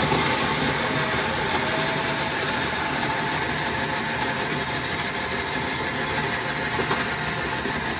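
A motor running steadily, with a harsh, even hiss.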